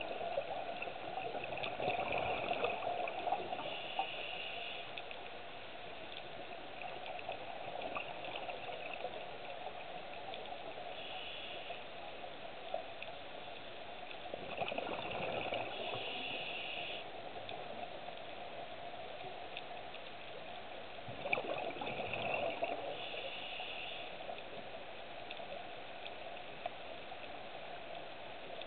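Scuba diver breathing through a regulator underwater: three rushes of exhaled bubbles, each lasting a few seconds, over a steady low hiss.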